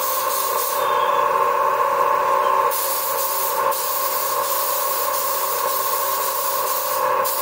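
Compressed-air spray gun hissing steadily as it sprays finish, over a steady machine hum. The hiss thins out for about two seconds, starting about a second in.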